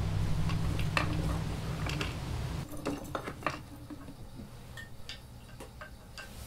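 A steady low rumble that drops away about two and a half seconds in, leaving a quiet room with scattered light clicks and clinks at irregular intervals.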